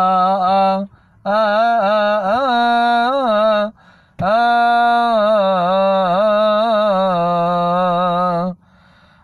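A solo male cantor chanting a Coptic Orthodox hymn unaccompanied, in long melismatic lines that waver up and down around one pitch. Three phrases, with short pauses for breath about a second in and about four seconds in, and the last phrase breaking off near the end.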